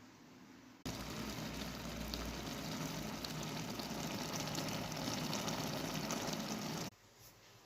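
Food cooking in a pot on the stove, a steady crackling, bubbling hiss that starts abruptly about a second in and cuts off abruptly near the end.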